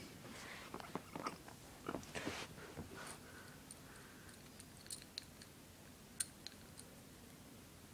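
Rustling and knocking from a handheld phone being moved and settled during the first three seconds, then a scattering of faint, sharp clicks.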